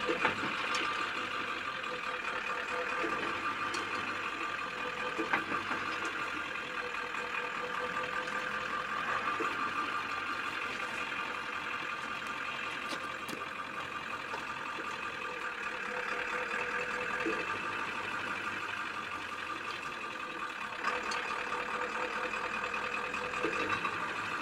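Ford F-250's Power Stroke diesel engine running steadily at low speed, with a few faint clicks.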